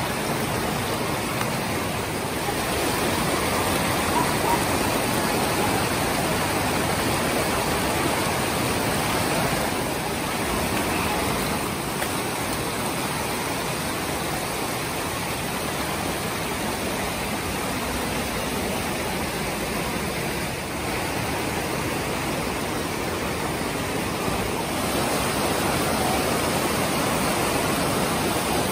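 Steady rush of a mountain stream tumbling over rocks.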